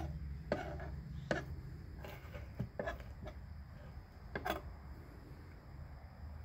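A handful of sharp, separate knocks and taps as a knife and a prickly pear pad are handled on a wooden cutting board, over a steady low background rumble.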